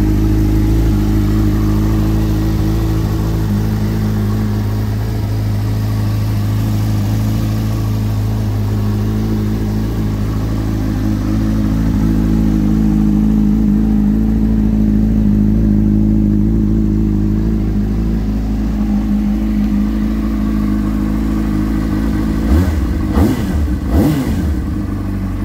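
2003 Honda CBR600RR's 599 cc inline-four idling steadily through an Akrapovic aftermarket exhaust. Near the end there are three quick throttle blips, each rising and falling back to idle.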